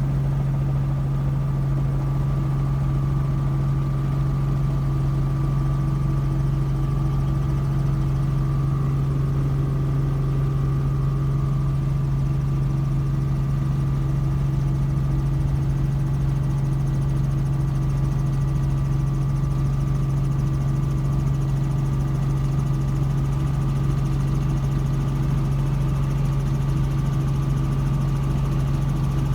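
A vehicle engine drones steadily, a constant low hum that does not change in pitch or level.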